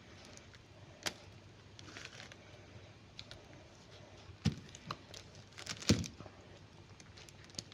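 Quiet handling noises, scattered crinkles and clicks, with two louder knocks about four and a half and six seconds in.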